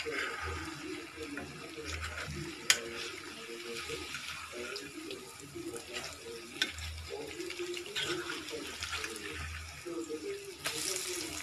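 Batata vadas deep-frying in hot oil in an iron kadhai: a steady sizzle of frying batter, with a couple of sharp clicks of a metal spoon against the pan as they are turned, about 3 and 7 seconds in.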